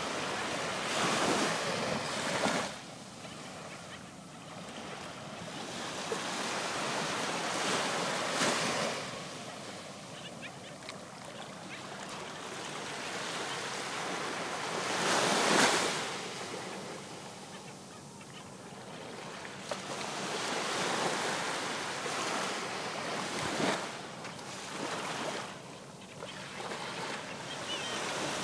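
Small waves breaking and washing up on a sandy beach. The surf swells and eases every several seconds and is loudest about halfway through.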